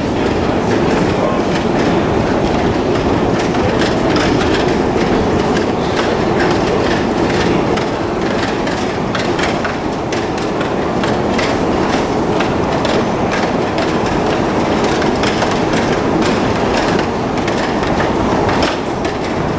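Long metro escalator running, a steady mechanical rumble with a continual irregular clatter of clicks from the moving steps and machinery.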